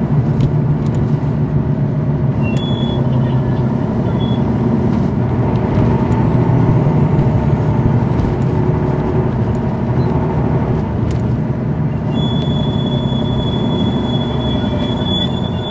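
2001 MCI D4000 coach's Detroit Diesel Series 60 engine running, heard from inside the bus: a steady low drone with scattered light clicks and rattles. About twelve seconds in, a faint high steady whine joins it.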